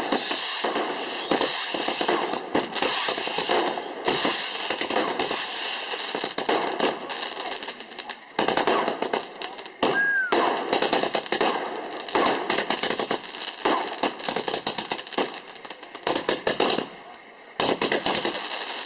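Fireworks going off in a dense, continuous run of rapid crackles and bangs, with short lulls, and a brief falling whistle about halfway through.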